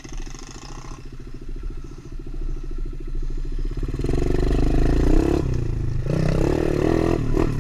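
Tao Tao DB24 pit bike's 110cc four-stroke single-cylinder engine running low and steady, then getting louder as the throttle opens from about four seconds in.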